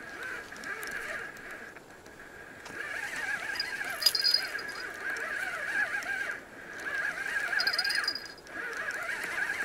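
A chorus of frogs calling at the pond, a warbling run of croaks that comes in phrases of one to three seconds with short breaks. Brief high chirps come about four and about eight seconds in.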